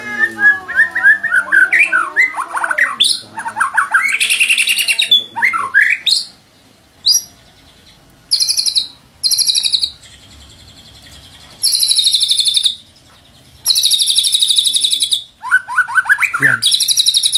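White-rumped shama (murai batu) singing: a run of rich, quickly changing whistled phrases that slide up and down. Then comes a series of harsh, buzzy high trills about a second long each, with short pauses between them, and a few falling whistled notes near the end.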